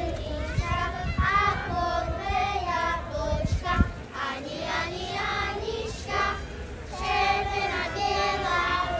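Children singing a song, with a few low thumps, the strongest about four seconds in.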